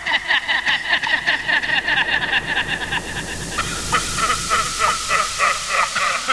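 Electronic music: a rapid, stuttering high-pitched pulse that sounds almost like chuckling, stepping down in pitch about three and a half seconds in.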